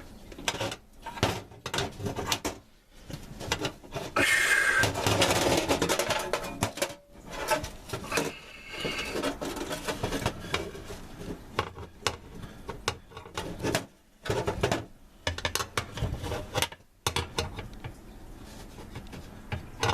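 Irregular metal clinks, taps and scraping as a new oven heating element and its wire terminals are handled and fitted, with a longer rustling scrape about four seconds in.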